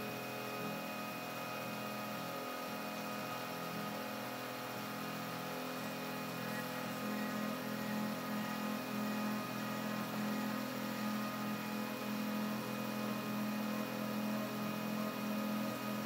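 Stepper motors of a home-built RepStrap 3D printer whining steadily as they drive the bed and extruder during a print, several steady tones together, with a lower hum that pulses in strength during the second half.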